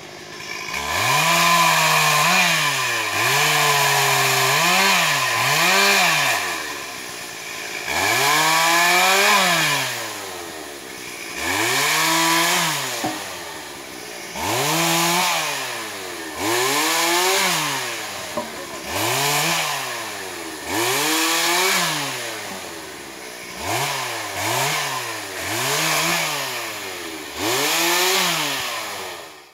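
Stihl MS 440 two-stroke chainsaw bucking felled logs, revved up hard and dropping back toward idle over and over, the engine note rising and falling in pitch with each cut.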